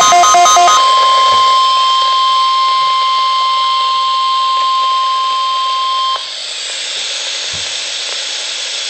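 NOAA Weather Radio weekly test over a weather radio's speaker: the last of the SAME digital header bursts, then the 1050 Hz warning alarm tone held steady for about five seconds. The tone cuts off abruptly and leaves only radio hiss.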